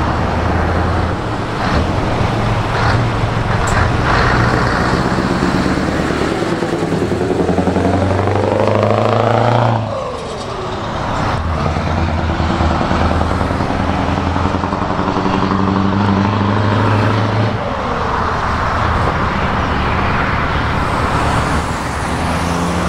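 Scania 164 580 Torpedo's open-piped V8 diesel pulling away hard, its pitch climbing through the gears. It drops sharply at an upshift about ten seconds in, climbs again, and drops at a second upshift a few seconds before the end.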